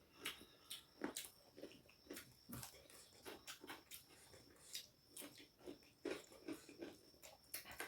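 Faint, irregular wet clicks and smacks of people chewing and eating a rice meal close to the microphone, several a second.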